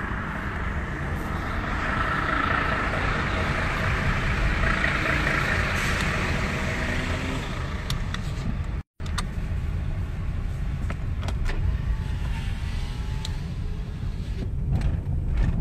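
Car moving along a street: steady engine and road noise with a low rumble. The sound drops out completely for a moment about nine seconds in.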